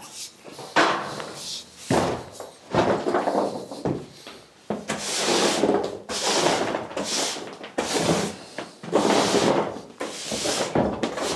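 Stiff push broom sweeping brick and mortar rubble across a floor: a run of rough scraping strokes, roughly one a second.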